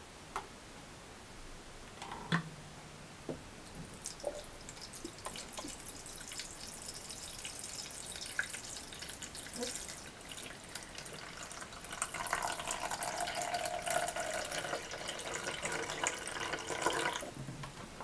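Water poured from a stainless steel thermal jug into the plastic water tank of a Melitta Look Therm Timer filter coffee machine, after a few light clicks and knocks of handling. The pour starts about four seconds in, grows fuller and louder about two-thirds of the way through, and stops just before the end.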